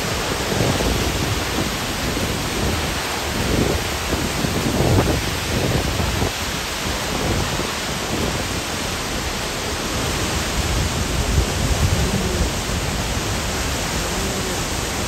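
Steady roar of Victoria Falls, a loud, even rush of falling water, with irregular low rumbles rising and falling through it.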